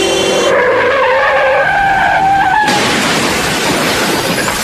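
Radio-drama sound effect of a car crash. A horn cuts off about half a second in, tyres screech under hard braking, and a sudden loud crash hits about two and a half seconds in, its noise trailing on.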